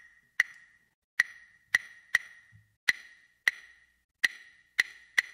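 A high, woody percussion knock struck about nine times in an uneven rhythm, each strike ringing briefly on the same pitch. It is the sparse opening of a music track.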